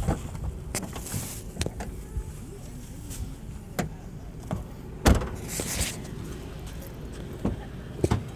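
Scattered knocks, clicks and rustling as a phone is carried along a dirt road and into a car, over a steady low rumble. The loudest knock comes about five seconds in, followed by a brief rustle, and a few more clicks come near the end as the person climbs in.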